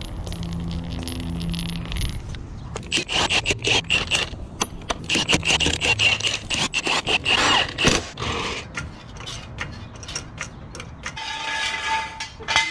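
Metal tool handling on concrete: a dropped socket picked up and sockets clinking and scraping, a fast, irregular clatter of clicks for several seconds, then a steadier scraping rush near the end.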